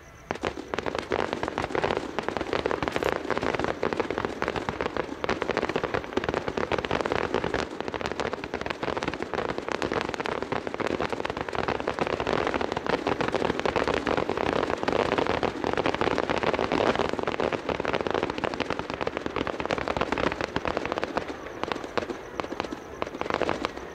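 Fireworks show going off: a dense, continuous crackle of many small bursts that starts suddenly and thins a little near the end.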